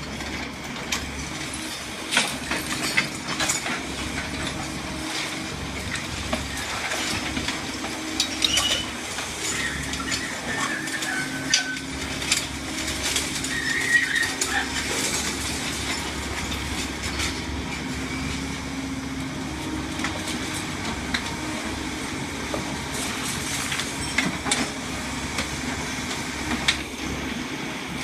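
KATO demolition excavator running, its hydraulic crusher jaw crunching and breaking concrete rubble, with irregular cracks and clanks over the steady engine hum and a few short metallic squeals around the middle.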